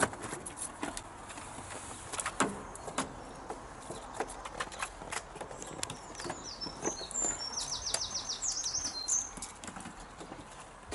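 Scattered clicks and knocks of hands working the plastic hatches and a plug socket on a caravan's side, loudest near the start and about two seconds in. A small bird sings a short high trilling phrase about two-thirds of the way through.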